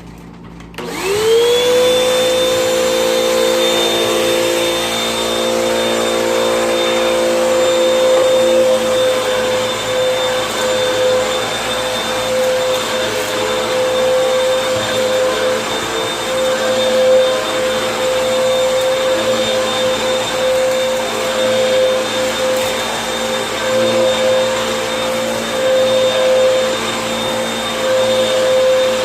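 Vacuum cleaner switched on about a second in, its motor spinning up with a quick rising whine and then running steadily.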